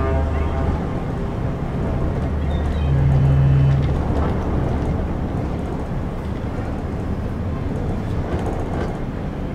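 Steady low drone of a river boat's engine, with a wash of water and wind noise. About three seconds in, a low steady tone sounds for just under a second and is the loudest moment.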